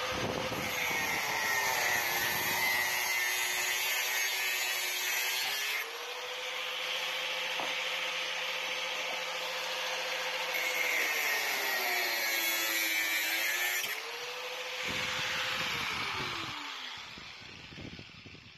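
Angle grinder cutting metal box section: a steady motor whine with a harsh grinding hiss, the pitch sagging twice as the disc bites under load and recovering as it eases off. Near the end the grinder is switched off and the whine winds down.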